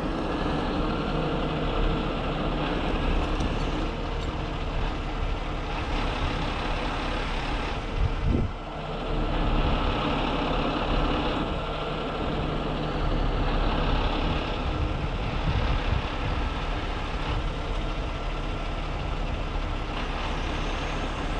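Heavy rotator tow truck's diesel engine running steadily while it powers the winches lifting a pickup off the embankment, with a brief louder noise about eight seconds in.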